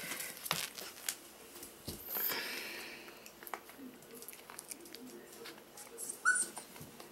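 Five-week-old Pomsky puppy giving one short, high squeak about six seconds in, amid scattered light clicks and rustles of puppies being handled on a wooden floor and blanket.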